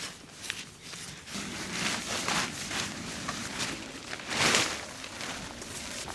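Irregular scuffing and rustling noises, roughly one a second, the loudest a little past four seconds in.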